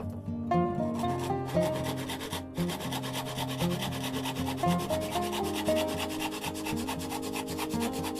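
Wood being sanded, a rapid, even run of scratchy strokes over background music.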